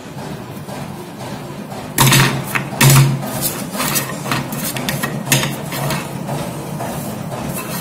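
Spot-welded steel nails clinking and knocking against each other and a board as they are handled and set down: a handful of sharp knocks, the loudest about three seconds in.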